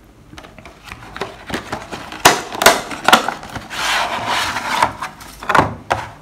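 Cardboard box being opened by hand and a clear plastic blister tray slid out of it: scraping and rubbing of card, then several sharp snaps and a run of crinkling from the stiff plastic, with a knock near the end as the tray is set down on a wooden table.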